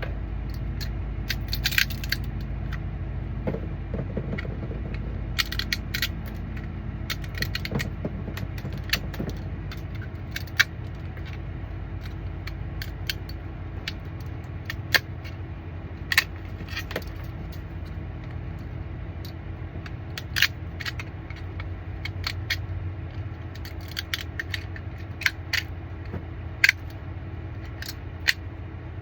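Small hard 3D-printed plastic parts clicking and rattling as they are handled and pulled apart, with scattered sharp snaps throughout, over a steady low hum.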